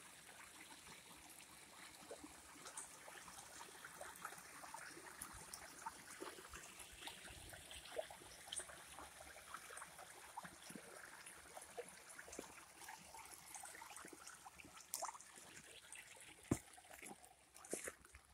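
Shallow rocky creek trickling faintly over stones, with scattered small clicks and ticks.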